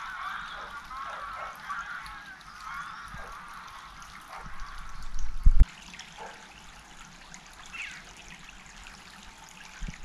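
A flock of waterfowl calling together in a dense honking chorus that fades away after a few seconds, over the steady trickle of a river. A brief low rumble on the microphone about halfway through.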